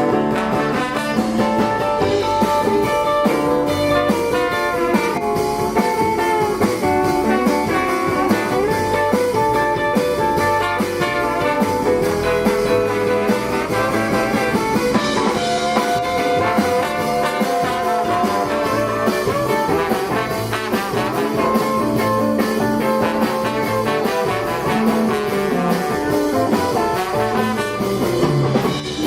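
Live jazz band playing an instrumental passage with a steady drum beat under sustained melody notes.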